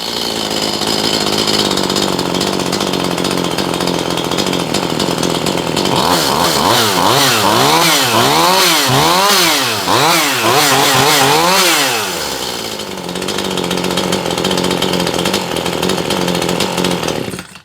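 Stihl MS211C two-stroke chainsaw engine, running on fresh crank seals. It idles steadily, then from about six seconds in it is revved and released about once a second for several seconds, dropping back to idle each time. It idles steadily again and is shut off near the end.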